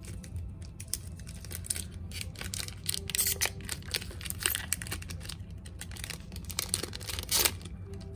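Foil wrapper of a trading-card booster pack being torn open and crinkled by hand, a run of short crackles with a louder crackle about seven and a half seconds in, as the cards are slid out.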